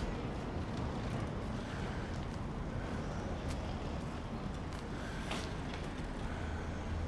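Road traffic going by: a steady rumble of passing vehicles, with a few faint clicks.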